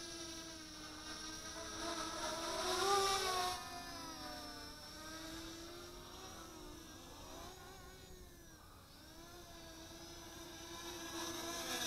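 XK X251 Whirlwind brushless quadcopter's motors and propellers whining in flight, the pitch wavering up and down as the throttle changes. It is loudest about three seconds in, fades, then grows louder again near the end as the quadcopter comes in low.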